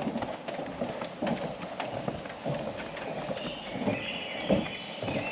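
Footsteps of a person walking along a trail, a steady series of soft thuds at walking pace.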